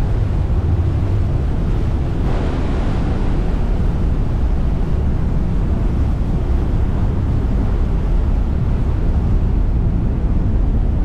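Steady low rumble of the Staten Island Ferry under way, mixed with wind buffeting the microphone and the rush of water, with a brief swell of hiss about two seconds in.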